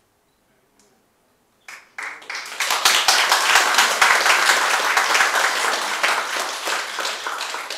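Audience applauding: after a short silence a few scattered claps come in, then full applause builds quickly and slowly eases off toward the end.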